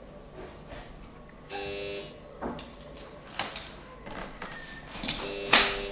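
Pram being pressed down and rocked on its suspension: two brief steady squeaks of about half a second each, one near two seconds in and one near the end, with a few light clicks and knocks between them.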